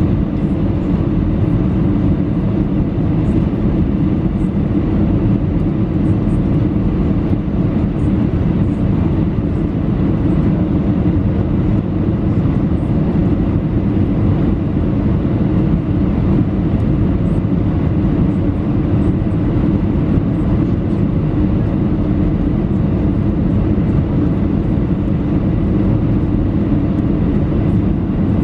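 Steady airliner cabin noise during final approach: engines and rushing airflow making an even, loud low rumble, unchanging throughout.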